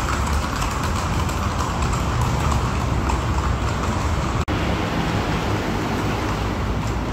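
Horses' hooves clip-clopping on pavement amid steady street and traffic noise, with a brief dropout about four and a half seconds in.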